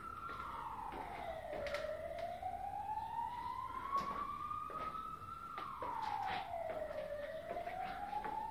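Siren wailing in a slow cycle: its pitch slides down over about a second and a half, then climbs slowly for several seconds, twice. A few light clicks and knocks sound over it.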